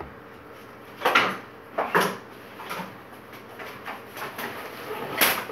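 Handling noises at a kitchen counter as things are moved about: three short rustling, scraping sounds, about one second in, about two seconds in and near the end.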